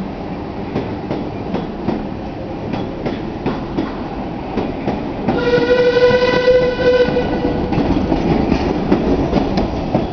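A heritage passenger train of wooden coaches running past, its wheels clicking over rail joints. About halfway through, a train whistle sounds one steady note for about two seconds.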